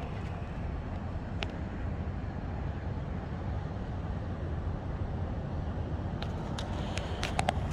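Steady low outdoor rumble with a faint hiss, and a few light clicks near the end.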